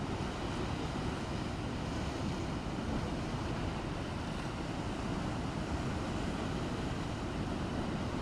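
Rough sea and strong wind: a steady rushing noise of waves with wind buffeting the microphone.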